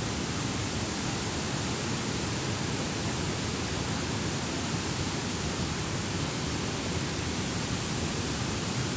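Water rushing through a dam's spillway gates, a steady, even noise that does not change.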